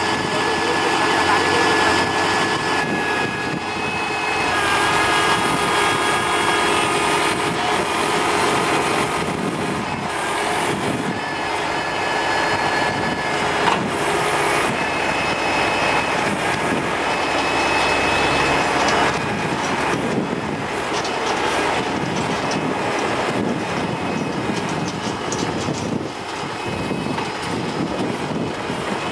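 TAFE tractor-mounted backhoe loader's diesel engine running steadily under load while the backhoe works, with a high whine that comes and goes.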